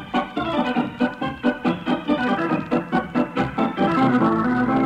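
Organ music curtain cue opening the act: a fast run of notes that settles into a held chord about four seconds in.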